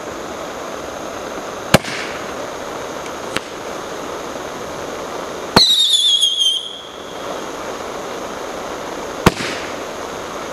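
Crazy Hearts Roman candle firing its shots: sharp pops every few seconds over a steady hiss. About halfway through, the loudest shot carries a falling whistle with crackling that lasts about a second.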